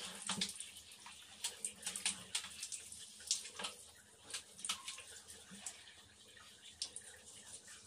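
Water splashing and dripping onto a tiled floor as a wet Shih Tzu is bathed by hand: light, scattered splashes and drips.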